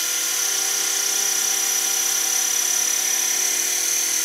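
Propeller motor of a handheld LED flying spinner toy running at full speed: a steady, high-pitched whir.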